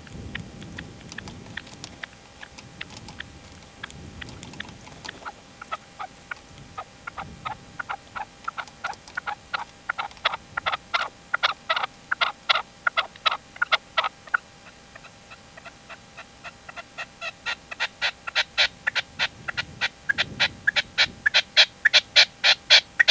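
Red-legged partridge, a caged decoy (reclamo), calling in a long series of short, sharp notes. They are faint and scattered at first, then from about two-thirds of the way in grow louder and more regular, about four a second.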